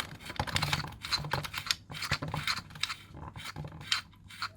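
Hands unscrewing and opening the air filter housing of a ZMZ-405 engine: quick, irregular light clicks and rattles.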